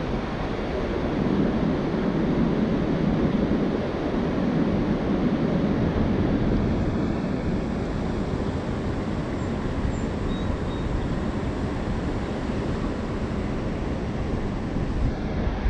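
Steady wind rumbling and buffeting on the microphone, over the rush of a flowing river.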